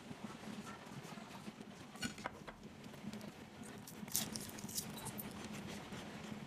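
Crisp crunching of a fried spring roll being bitten and chewed: a few sharp crackles about two seconds in and a louder cluster around four seconds in, over a low steady hum.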